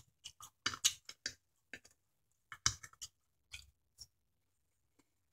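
Faint, close-up mouth sounds of eating: a scattered run of short wet clicks and smacks from chewing and licking fingers, which stop about a second before the end.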